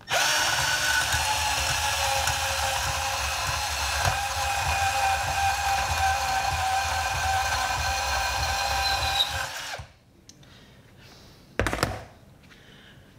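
Milwaukee cordless compact band saw running steadily with a high whine for about ten seconds as it cuts through a stainless steel lag bolt, then it stops. A short clunk follows near the end.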